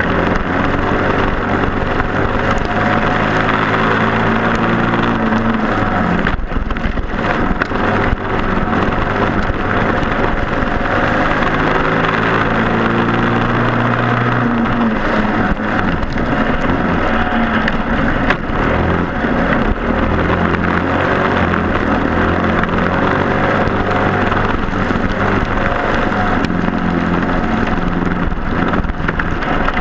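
A racing kart's Briggs & Stratton Animal four-stroke engine running hard, its pitch climbing and then dropping several times as it gains and sheds revs, with wind noise over it.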